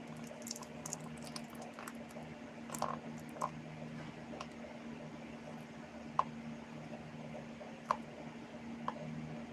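Scattered small clicks and taps, a few sharper than the rest, over a steady low hum.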